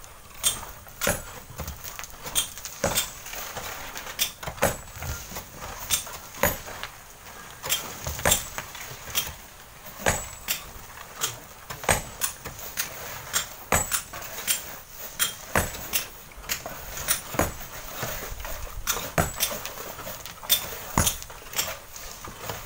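Long bamboo poles scraping and knocking against a sand-and-stone cliff face: irregular sharp clacks, about one or two a second, over steady outdoor hiss.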